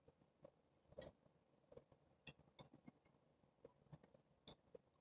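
Near silence broken by faint, scattered light clicks and ticks, about eight in all, from a thin metal tool being handled against an iPad; the clearest come about a second in and near the end.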